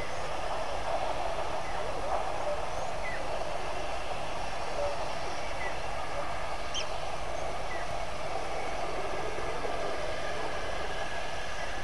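Steady rushing of shallow river water as an elephant herd wades across, with a few faint, short bird chirps now and then.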